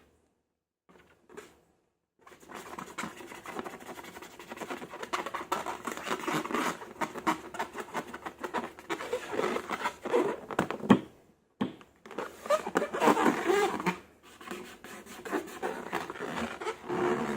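Slime being worked by hand, a dense run of sticky clicks and crackles that starts about two seconds in and stops briefly a little past the middle.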